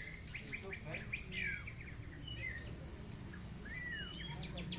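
White-rumped shama (murai batu) singing: a run of quick chirped notes and whistles, with a falling whistle and rising glides near the end.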